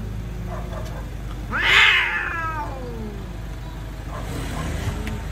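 Street cats caterwauling in a fighting standoff: a loud yowl about a second and a half in that slides down in pitch, then lower, quieter yowls near the end.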